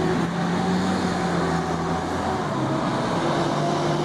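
A motor vehicle engine running steadily, a low even drone that shifts slightly in pitch a little past halfway.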